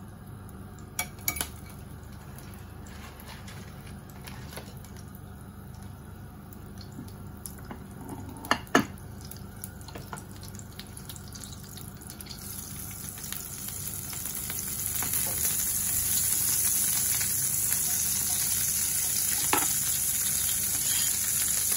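Butter melting in a ceramic non-stick frying pan, quiet at first with a few clicks and knocks, the loudest a little before halfway. From about two-thirds of the way in, a steady high sizzle builds as the butter gets hot and starts to foam.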